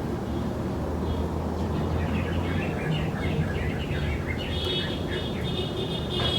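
Many quick high-pitched chirps that begin about two seconds in and grow into dense, continuous twittering, over a steady low rumble.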